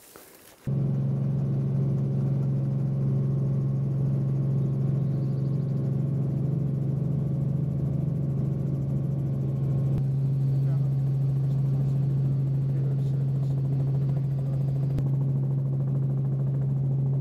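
Helicopter cabin noise in flight: a loud, steady drone of engine and rotor with a strong low hum, cutting in suddenly about a second in.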